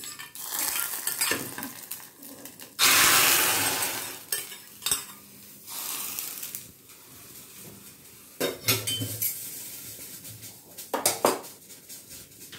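A hot tempering of mustard seeds and curry leaves in ghee poured into a pot of rasam, sizzling sharply about three seconds in and dying away over a second or so. Then a steel ladle stirs and clinks against the metal pot several times.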